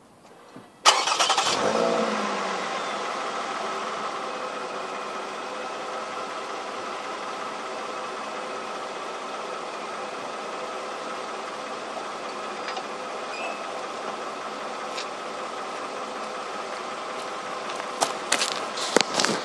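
2007 Lexus ES 350's 3.5-litre V6 heard at the rear exhaust, starting about a second in with a brief flare in revs, then settling into a steady idle. A few sharp knocks come near the end.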